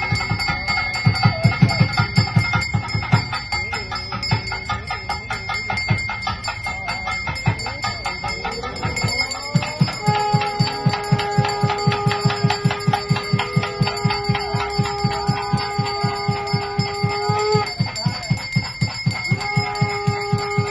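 Temple ritual sounds: bells ringing continuously over a fast, even beat. About halfway in, a single steady wind note is held for several seconds, stops, and is sounded again near the end.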